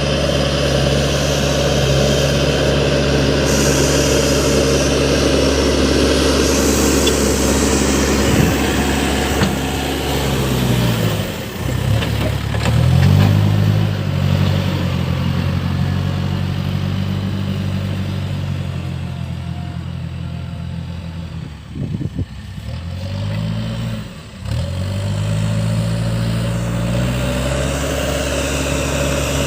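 Case backhoe loader's diesel engine running steadily at working speed. Its engine speed sags and picks back up twice, about eleven seconds in and again a little past twenty seconds.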